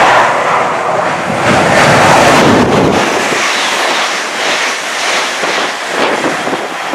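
A CrossCountry Voyager diesel multiple unit passing at speed, a loud rushing rumble that cuts off abruptly about three seconds in. Then a ScotRail electric multiple unit running past close by, a lighter rush of wheels and air, with wind buffeting the microphone.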